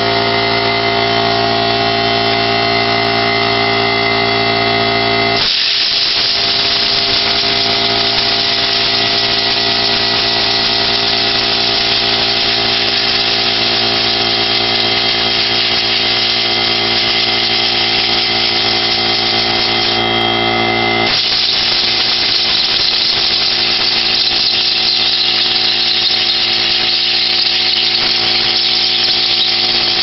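Electric air compressor running with a steady hum. About five seconds in, an air blow gun opens with a hiss of compressed air as dust is blown out of a vacuum cleaner filter. The air stops for about a second about two-thirds of the way through, then blows again over the compressor's hum.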